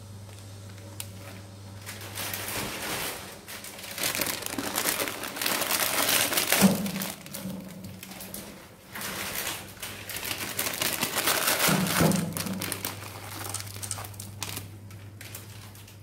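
Plastic instant-noodle packet crinkling and being torn open in uneven bursts, with two louder knocks among them.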